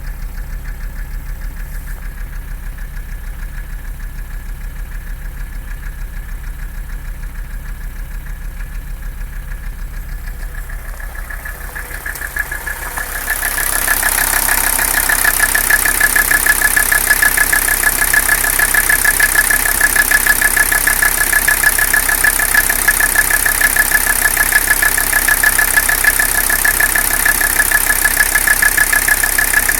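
Mercedes-Benz 300CD five-cylinder diesel engine idling roughly with a rhythmic knock. This is the noise and rough idle the owner wants diagnosed. About twelve seconds in, the sound grows louder and a steady high whine comes in over the idle.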